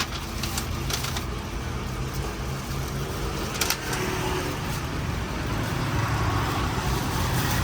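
Street traffic passing: a steady rumble of vehicle engines and tyres that grows a little louder near the end. There is a single sharp click about three and a half seconds in.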